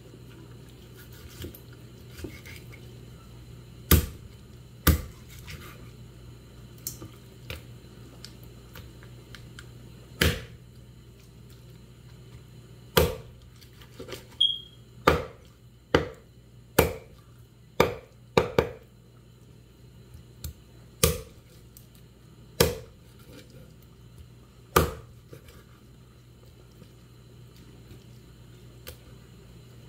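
Large kitchen knife chopping raw meat on a thick round wooden chopping board: a series of sharp knocks at irregular intervals, coming faster through the middle. A steady low hum runs underneath.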